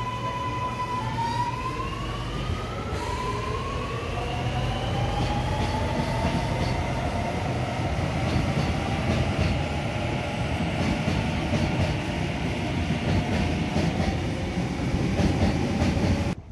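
Sydney Metro Alstom Metropolis driverless train pulling away and accelerating: its electric traction whine rises in pitch in several steps over a low rumble of the wheels. The sound cuts off suddenly near the end.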